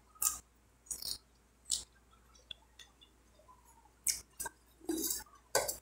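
Close-up eating sounds of a mouthful of watercress salad being chewed: a string of short, irregular mouth noises with quiet gaps between them.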